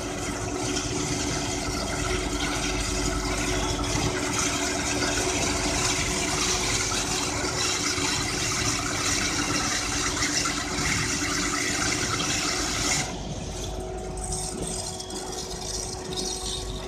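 CS280 horizontal metal-cutting band saw running and cutting through a solid round metal bar under coolant: a steady motor hum under a loud high cutting hiss. About thirteen seconds in the hiss drops away suddenly, leaving the machine's hum running on.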